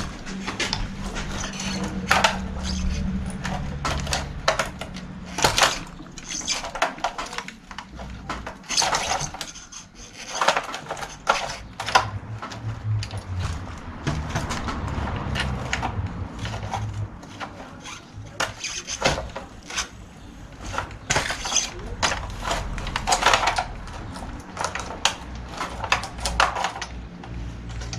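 Small metal parts clinking and clicking as a bicycle chain tensioner is fitted by hand at the rear axle: irregular light taps and rattles of metal on metal.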